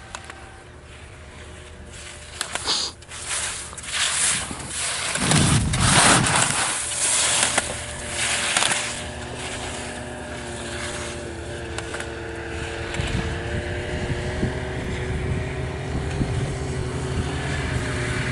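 Slalom skis scraping and hissing on firm spring snow through a series of quick turns, the loudest stretch in the middle, with a few sharp knocks from the gate poles. In the second half a motor's steady hum comes in under it.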